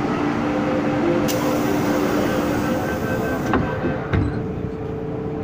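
MTR M-Train's sliding passenger doors closing: a hiss for about two seconds, then two knocks as the doors shut, a little over three and a half and four seconds in, over the train's steady hum.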